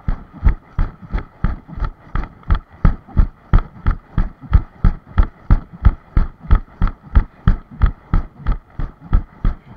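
Footsteps of a person walking over a bare rock platform, heard as quick, regular thumps, about three a second.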